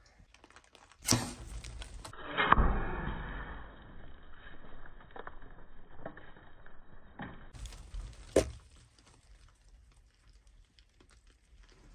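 A big-bore blowgun shot at feeding hogs: a sharp puff about a second in, then a heavy thud and a few seconds of scuffling as the hogs bolt from the feeder. Another sharp knock comes about eight seconds in.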